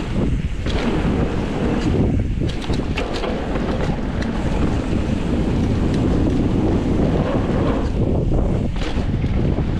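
Wind rushing over the camera microphone as a mountain bike rolls fast down a dirt jump trail, the tyres and frame rattling underneath, with a few sharp clacks about two to three seconds in.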